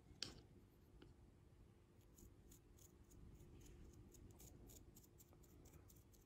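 Faint scratching of a paintbrush dry-brushing a small model ship, a quick run of short strokes starting about two seconds in, with a light tick about a quarter second in.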